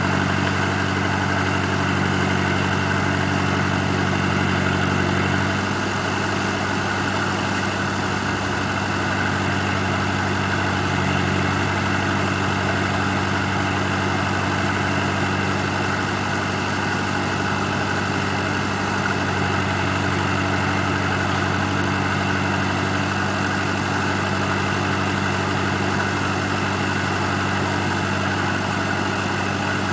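Ebro 460 tractor's Perkins four-cylinder diesel running steadily while its mounted hydraulic crane swings and works the grapple. The engine note drops slightly about five seconds in.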